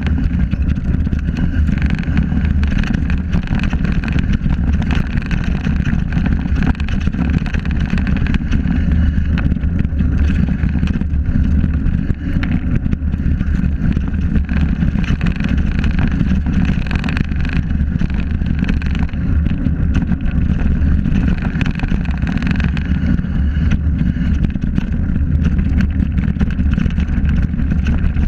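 Steady wind buffeting on the microphone of a mountain bike descending a rough dirt trail, mixed with the rumble and small rattles and clicks of the knobby tyres and bike over the ground.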